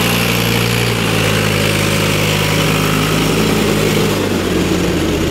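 Diesel farm tractor engine running steadily under load close by as it hauls a loaded sand trolley up a sandy slope, its pitch shifting slightly a couple of times.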